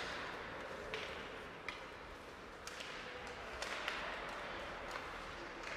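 Ice hockey play: a steady scraping hiss of skates on the ice with several sharp clacks and knocks of sticks, puck and boards.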